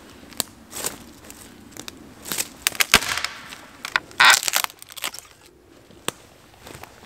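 Dead wooden pole being levered against a tree trunk and snapped by hand: a series of sharp wood cracks, then a longer splintering crunch about four seconds in as the pole breaks through.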